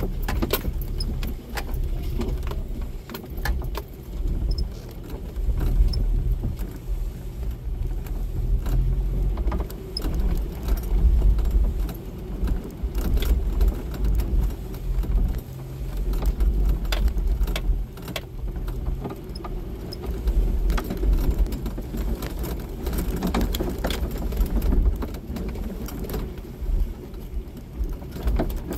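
Jeep Wrangler driving slowly over a rough dirt and gravel track: the engine runs low and steady while the body and loose items inside rattle and clink as it bounces.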